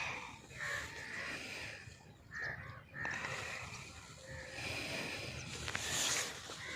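Birds calling outdoors, a series of short calls one after another over a low, steady background noise.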